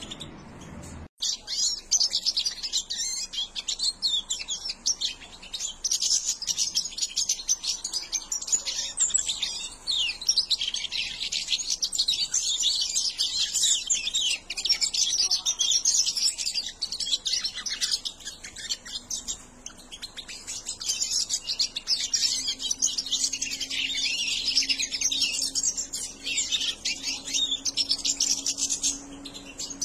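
Dense, continuous high-pitched chirping and twittering of several young European goldfinches, starting after a brief break about a second in.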